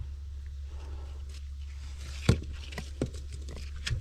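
A few sharp knocks as a rusty iron cleanout plug is handled and set back into a drain opening, with one louder knock a little past halfway. A steady low hum runs underneath.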